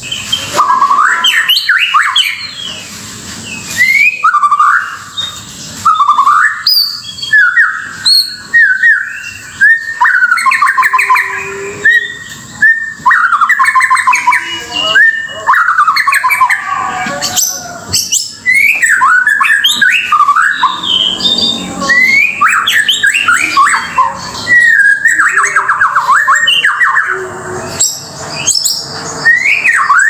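White-rumped shama (murai batu) singing a loud, varied song: rising whistles, rapid trills and chattering phrases following one another with only brief pauses.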